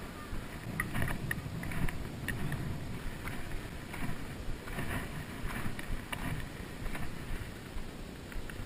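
Wind buffeting the camera microphone, an uneven low rumble, with scattered light clicks and ticks.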